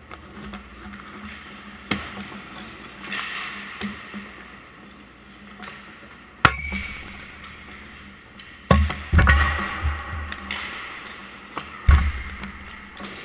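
Ice hockey practice in a rink: skates scraping on the ice and sharp cracks of pucks off sticks, pads and boards every few seconds, with a cluster of hits about nine seconds in, echoing in the arena.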